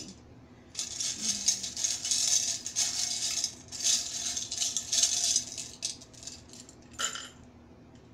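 Small casting charms and beads rattling in a small wooden box, shaken in two long bouts, then a single sharp clatter near the end as they are tossed out onto the table.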